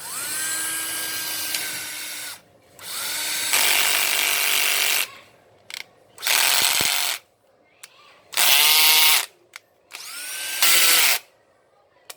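Cordless drill motor run in five short bursts of one to two seconds each, the whine rising to speed as the trigger is squeezed and winding down when it is released, with small clicks between runs.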